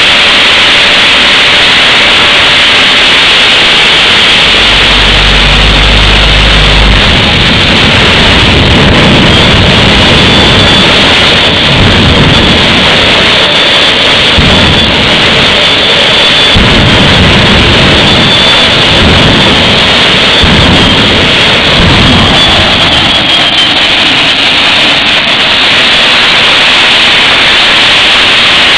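Jet turbine engine running loudly and steadily, a dense rushing noise that overloads the microphone, with a faint high whine that dips slightly near the end.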